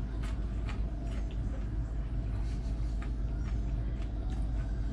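A man chewing crisp fried fish, with scattered small crunches and mouth clicks, over a steady low rumble.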